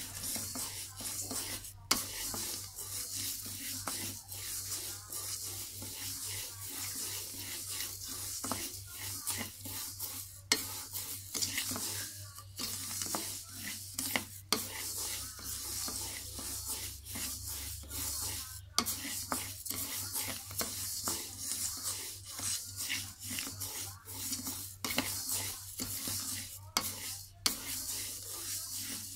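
Raw sticky rice being dry-roasted in a wok and stirred nonstop with a wooden spatula: a continuous dry rustling hiss of grains sliding over the metal, with frequent scrapes and now and then a sharper knock of the spatula against the pan. This is the slow dry-roasting stage of making toasted rice powder, the grains still pale.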